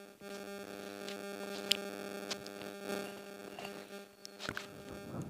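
Steady electrical hum with a buzzy edge, with a few faint sharp clicks scattered through it.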